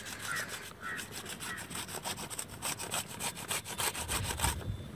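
Flat hand grater shredding food in rapid, even scraping strokes, several a second, which stop near the end.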